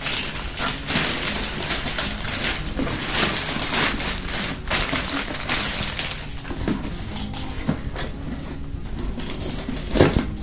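Packaging rustling and crinkling as a box is handled and opened, with many short crackles running throughout.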